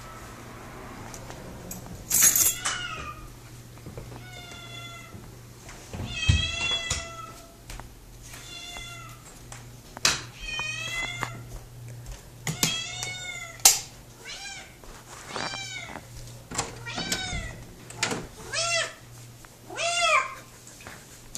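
Pet cat meowing loudly and repeatedly, about a dozen meows a second or two apart, many rising then falling in pitch: a cat greeting its owner coming home.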